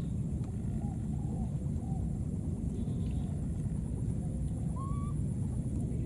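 Faint short, arching cries from baby monkeys, several in the first two seconds and a clearer rising one near the end, over a steady low rumble and a thin high buzz.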